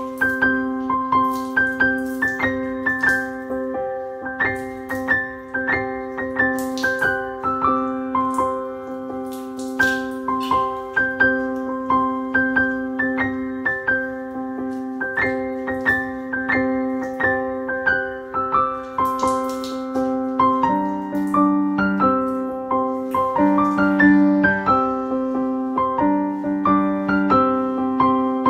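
Background piano music: a light, repeating melody over steady held low notes, with the bass notes starting to move about two-thirds of the way through.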